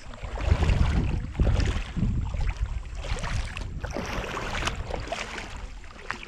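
Wind buffeting the microphone in gusts: a loud, uneven rumble that swells and fades.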